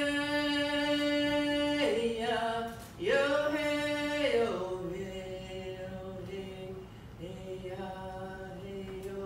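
A woman singing unaccompanied: long held notes that each slide down at the end, the first two higher and the last one lower and held for several seconds with a short break partway.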